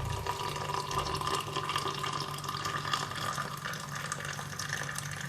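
Boiling water being poured into a cup of spices and green tea, a steady pouring and filling sound whose pitch creeps upward as the cup fills.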